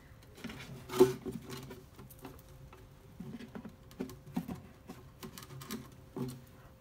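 Cloth rubbing and wiping a hollow plastic washer fluid reservoir: irregular scratchy rubbing with light knocks and clicks of the tank. The sharpest knock comes about a second in.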